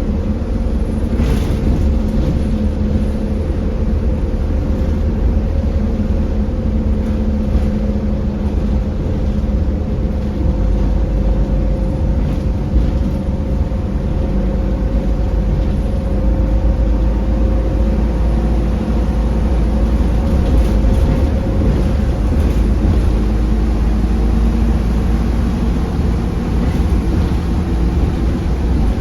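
Optare Solo M900 single-deck bus driving, heard from inside: a steady low engine and road rumble whose engine tone rises and falls a little.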